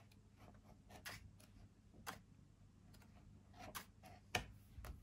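Near silence broken by a dozen or so faint, scattered clicks and soft taps from a paperback colouring book being handled, its pages turned.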